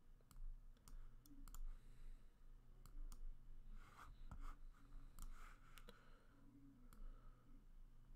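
Faint, irregular clicks of a computer mouse over a low steady hum.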